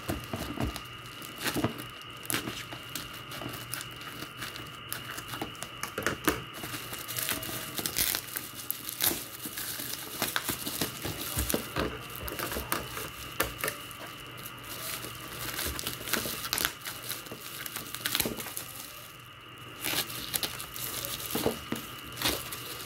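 Clear plastic wrap and bubble wrap being handled, cut and torn off a small boxed package: an irregular run of crinkling, crackling and ripping.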